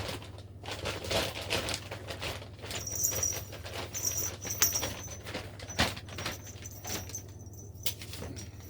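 A cat playing with toys: irregular rustling and light tapping, with one sharper click about two-thirds of the way through.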